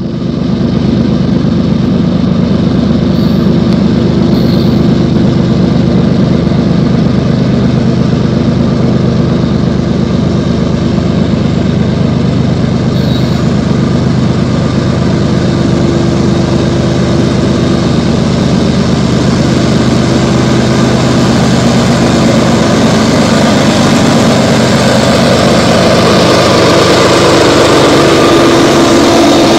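CSX freight train's diesel locomotives running with a steady engine drone, getting somewhat louder as the lead units approach and pass near the end.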